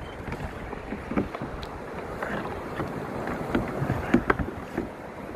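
Choppy sea water slapping and sloshing against a plastic kayak, with wind on the microphone and a few sharp knocks.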